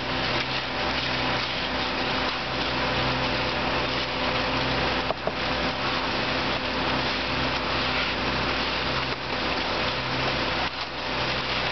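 Engine of concrete-pouring equipment running steadily: a constant hum under an even wash of noise.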